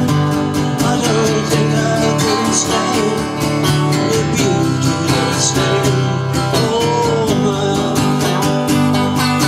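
Country song played on strummed acoustic guitar with a steady rhythm, and a gliding melody line over it, between sung lines.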